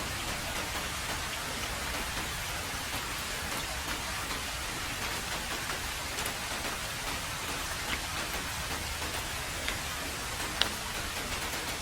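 Heavy rain falling steadily on a road, an even dense hiss with scattered sharper drop ticks; one louder tick near the end.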